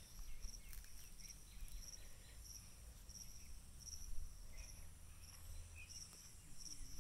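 An insect chirping steadily: short, high-pitched pulses about twice a second, over a faint low rumble.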